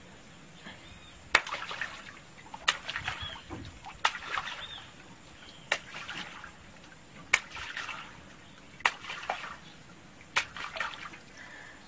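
Crocodiles lunging at fish bait in shallow muddy water: seven sharp slaps, each followed by a short splash, coming about every second and a half.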